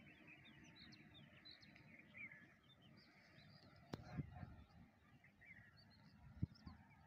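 Faint chorus of small birds chirping and twittering. A sharp click comes about four seconds in, with a few soft low thumps after it and another one near the end.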